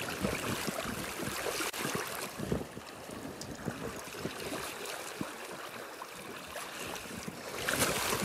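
Flowing river water with wind gusting on the microphone; the water noise grows louder near the end.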